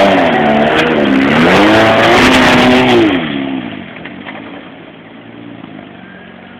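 Classic car's engine revving hard under load up a muddy trial slope, its pitch rising and falling several times, then falling away sharply about three seconds in to a quieter, steadier engine sound.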